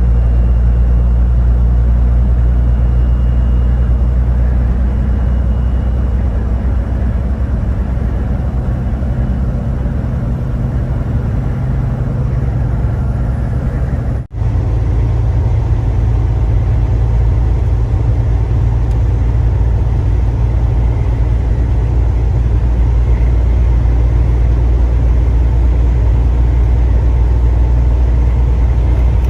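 Steady low rumble and hum of a running vehicle, cutting out for a split second about halfway through.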